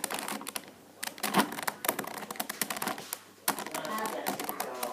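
Plastic Rubik's cube pieces clicking and rattling irregularly as the tightly packed cube is twisted and pried apart by hand.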